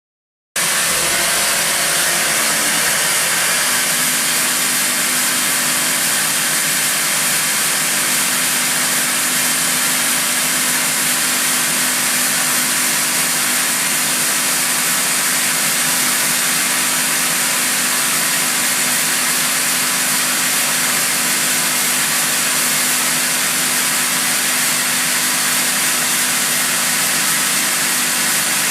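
CNC machine running an automated mold-polishing pass: a steady, loud hiss with a low hum underneath, starting abruptly about half a second in.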